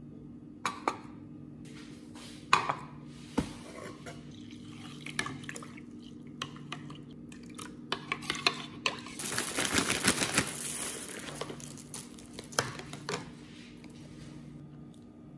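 A metal spoon and bowl clinking and knocking on a granite countertop while breakfast is made, then dry chocolate cereal poured into a bowl of milk for about two seconds near the middle, with a few more clinks after. A faint steady low hum sits underneath.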